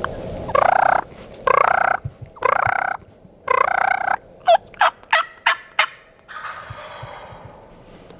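Wild turkey gobblers gobbling four times in quick succession, followed by a run of five short, sharp yelping notes, each dropping in pitch.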